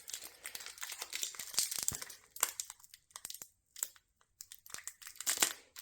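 Light crinkling and crackling of a foil booster-pack wrapper being handled, in short irregular bursts with a brief pause in the middle, as cards are set down and the next pack is picked up.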